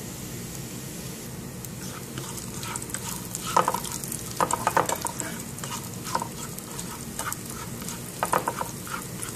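Cashews and raisins frying in hot ghee in a pan, sizzling steadily. A spoon scrapes and clicks against the pan in short bursts as they are stirred, most strongly about a third of the way in and again near the end.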